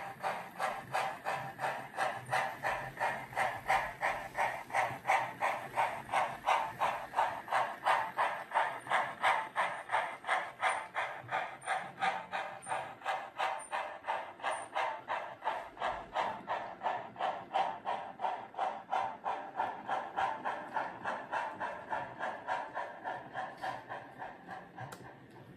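Steam locomotive chuffing at an even pace of about three exhaust beats a second, with a steady low hum beneath, as it hauls a coal train past; it eases off near the end.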